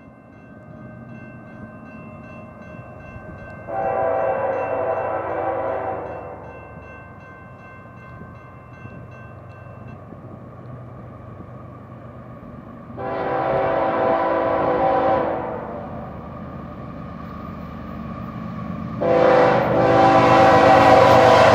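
CSX GE ES44AC freight locomotive sounding its air horn for a grade crossing: two long blasts, then a third starting near the end, the loudest. The diesel engine's low rumble grows as the train nears, and a crossing bell rings faintly in the first half.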